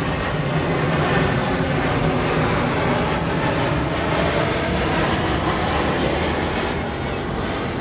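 Airplane flying over: a loud, steady engine roar with a thin high whine that slowly drops in pitch as it passes.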